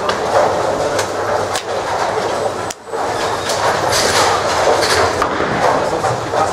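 Bowling alley din: the rolling rumble of bowling balls on the wooden lanes mixed with scattered clatters and knocks of pins and balls from the surrounding lanes. The sound briefly drops out just before three seconds in.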